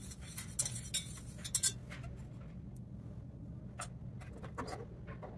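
Light metal clinks of a probe thermometer against a stainless steel melting pot of melted wax, a quick run of them in the first two seconds, then a couple of taps as it is set down, over a steady low hum.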